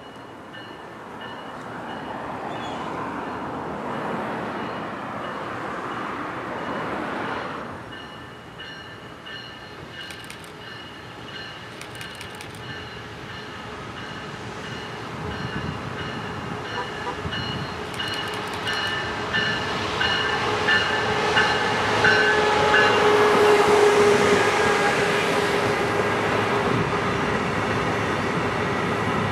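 Brightline high-speed passenger train, powered by Siemens Charger diesel-electric locomotives, approaching and rolling past, getting louder toward the end. A steady repeating high ding sounds throughout.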